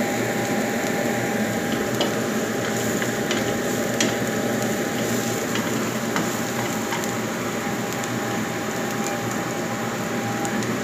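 Garlic, dried shrimp and mushrooms sizzling in hot oil in a wok while being stir-fried. A wooden spatula scrapes and taps against the pan now and then.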